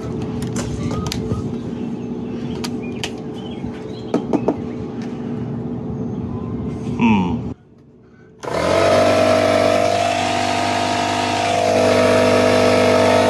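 A 6-gallon, 150 psi pancake air compressor running, its electric motor giving a steady hum as it fills the tank; it stops about seven and a half seconds in. After a short lull, background music with guitar starts and carries on to the end.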